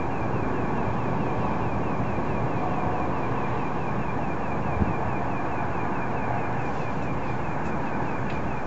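An unidentified pulsating noise: a thin high tone beating evenly about five times a second, steady throughout, over a constant rushing background.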